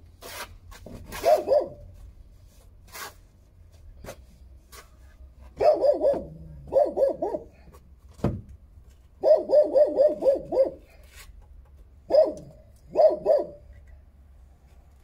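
A dog barking in quick runs of several barks, the longest run coming around the middle. A few sharp knocks or taps fall between the runs.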